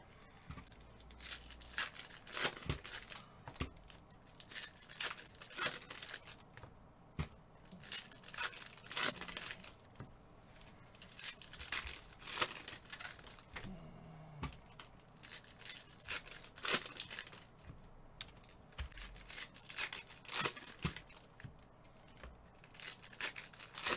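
Plastic packaging being crinkled and torn open, in irregular bursts of rustling with short pauses between them.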